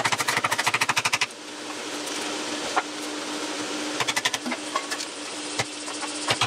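Japanese chisel being driven into timber with rapid light hammer taps, about ten a second, in a run of about a second, another short run about four seconds in, and a few single harder taps between, over a faint steady hum.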